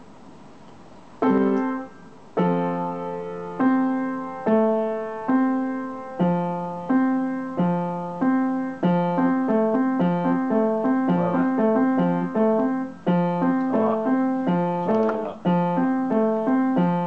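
Upright piano played slowly by a young learner practising. After about a second of quiet, single notes and chords sound roughly a second apart, with a low bass note alternating underneath. From about nine seconds in they pick up into a quicker, even run of notes.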